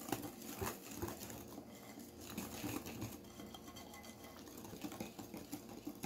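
Wire whisk beating flour into a cake batter in a glass bowl by hand: quiet, quick, irregular scraping and tapping of the wires against the glass.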